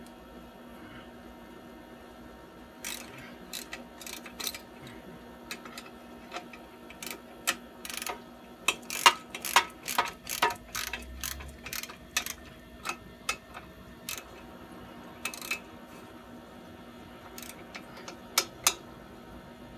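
Ratchet wrench clicking in irregular runs with sharp metal clinks, densest about halfway through, as a lock nut is run down and tightened on a muffler mounting bolt.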